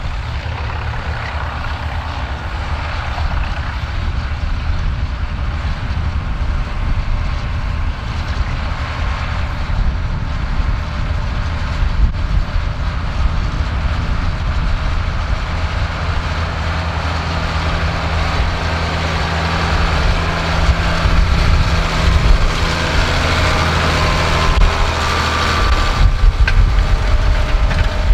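Ford TW-series six-cylinder diesel tractor engine running steadily under load while pulling a disc cultivator through ploughed soil. It grows louder towards the end as the tractor comes close.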